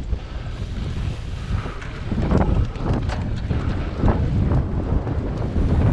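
Wind buffeting the microphone of a cyclocross bike moving at race speed, with a steady low rumble. Irregular knocks and rattles come from the bike jolting over rough dirt and grass, and it gets a little louder about two seconds in.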